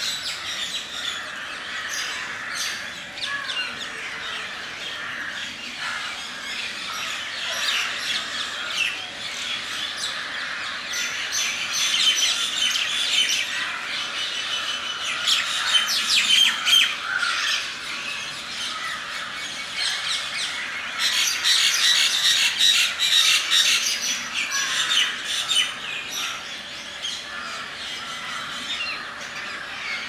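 A flock of rose-ringed parakeets calling: shrill squawks and chirps overlapping without pause, with louder bouts around the middle and again about two-thirds of the way through.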